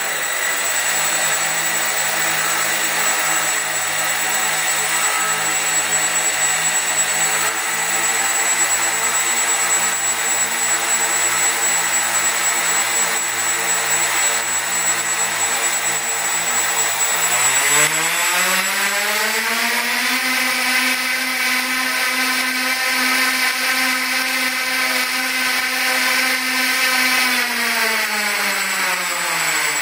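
Four brushless quadcopter motors running together with a steady whine. A little over halfway through they spin up to a higher, steady pitch, then wind down near the end, as the speed controller steps the motors to new randomly chosen speed setpoints.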